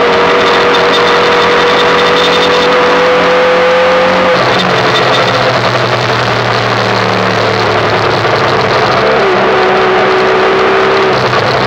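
Derestricted 2005 Yamaha YBR 125's single-cylinder four-stroke engine running under way. The engine note holds steady, drops about four seconds in, and steps down again a little after nine seconds.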